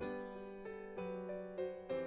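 Background music: piano playing a gentle melody of single notes changing every quarter to half second.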